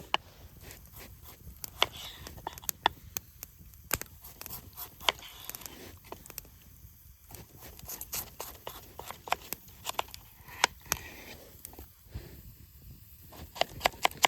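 Sharp, irregular pops and crackles with brief moments of hissing, from a small wood fire burning in a Firebox stove with food frying in a pan over it.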